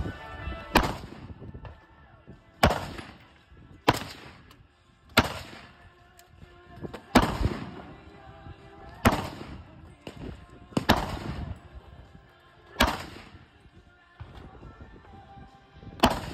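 A firearm fired single shots at a steady slow pace, about one every one and a half to two seconds, nine in all, each with a short echoing tail. Music plays faintly underneath.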